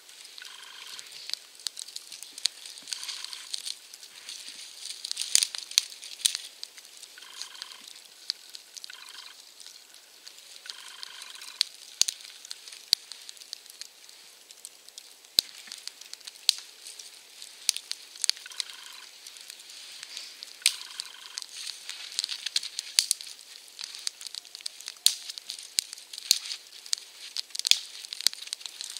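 Small campfire of spruce twigs crackling and hissing, with irregular sharp pops scattered throughout.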